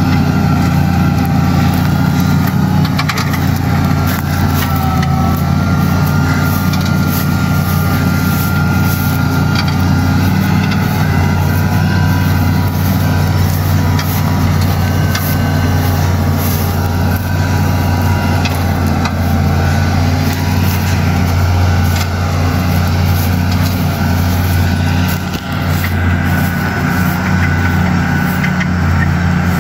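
Steyr 9145 tractor's diesel engine running steadily under load while pulling a plough through the soil, with a brief dip about 25 seconds in.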